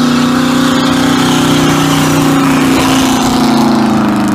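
1968 GMC pickup's engine held at high revs during a burnout, with the rear tyres spinning and smoking. The engine note is loud and steady and sags slightly in pitch near the end.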